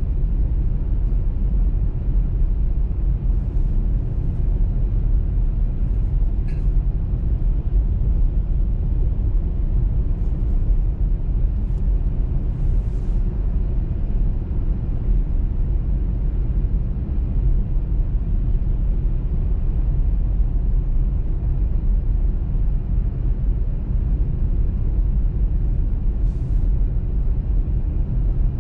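Steady low rumble of a car driving on a snowy motorway, from its tyres and engine. A few faint, brief ticks sound now and then.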